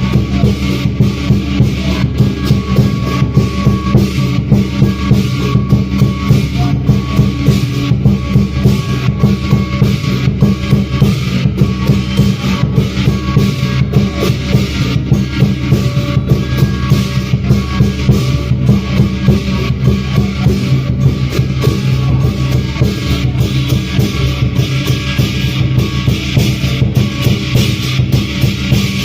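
Lion dance percussion: a drum beating a fast, steady rhythm with crashing cymbals on about every stroke, loud and without a break.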